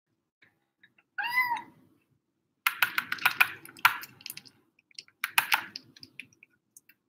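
A cat meows once, about a second in, a short call that rises and falls in pitch. Then come two runs of quick clicks and scrapes from a plastic spoon working wet canned food in a bowl as a kitten eats.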